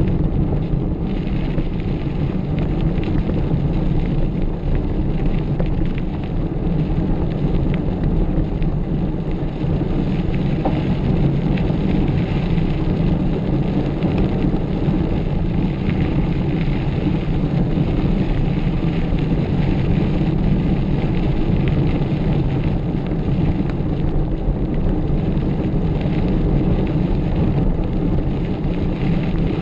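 Wind buffeting the microphone of a camera riding on a moving mountain bike: a steady, loud, deep rumble, with light rattles from the bike over rough ground.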